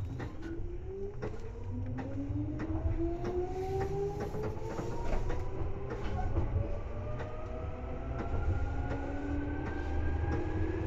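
Seibu 2000 series electric train accelerating, heard from inside the car: the traction motors' whine, several tones together, rises steadily in pitch over the low rumble of the wheels, with frequent clicks from the wheels over rail joints.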